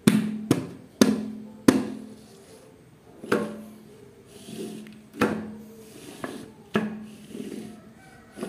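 Background music: sharp drum hits every half second to two seconds, each with a low bass note ringing after it.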